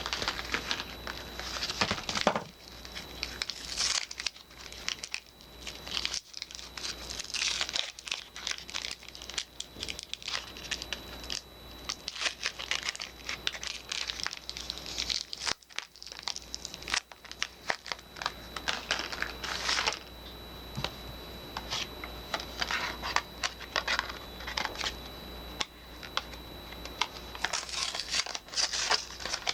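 Soap wrappers being unwrapped by hand: irregular crinkling and tearing of the packaging, in uneven bursts.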